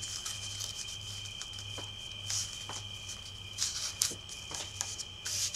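Paper currency rustling and crinkling in short soft bursts as fingers fold and press creases into a dollar bill, with a few light ticks as the bill is handled.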